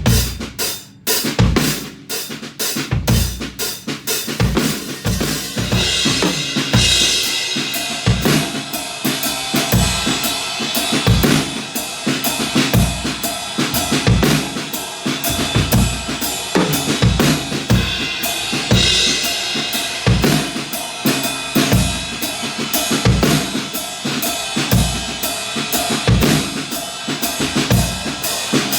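Acoustic drum kit played in a steady groove, bass drum and snare under cymbals, recorded on a phone's microphone. The cymbal wash thickens about six seconds in, with louder cymbal hits there and again about nineteen seconds in.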